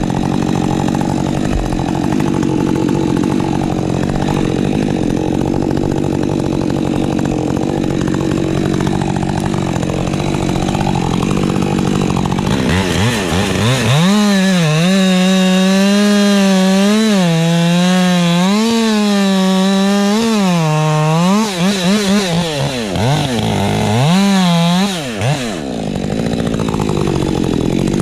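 Ported Husqvarna 550 XP Mk II two-stroke chainsaw running at high revs and cutting wood. The engine note is steady at first, then wavers up and down repeatedly as the load on the chain changes, with a few quick throttle drops a few seconds before the end.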